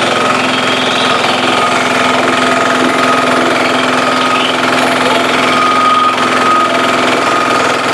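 A self-propelled flail mower's engine runs steadily under load while its flail rotor chops grass, with the cutter set very low, close to the ground.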